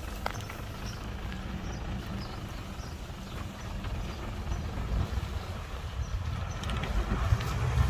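Low rumble of a heavy earthmoving machine's diesel engine running, growing louder near the end.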